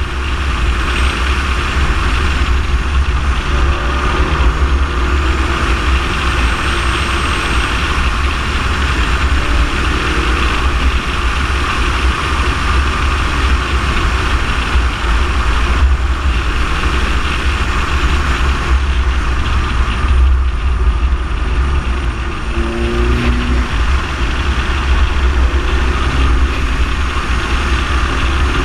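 Wind buffeting and tyre noise on a car-mounted camera at road speed: a steady, choppy low rumble with hiss over it. The car's engine is faint beneath, shifting in pitch a few times.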